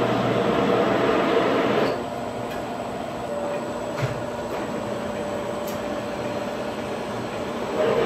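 Large metal lathe running with an alloy wheel spinning in its chuck. A turning tool cuts the wheel for about the first two seconds, then the sound drops to the steadier running of the lathe, with a single knock about four seconds in, and the louder cutting noise starts again near the end.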